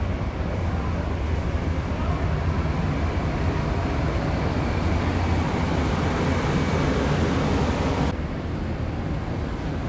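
Steady low rumble and rushing noise of a passenger train. About eight seconds in it cuts abruptly to a quieter, duller version of the same noise.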